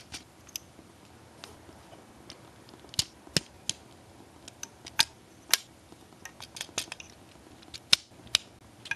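Plastic Transformers Animated Deluxe Class Rodimus Minor action figure being transformed by hand from car to robot mode: scattered sharp clicks and snaps as its plastic parts are swung and pressed into place, a few at a time with short pauses between.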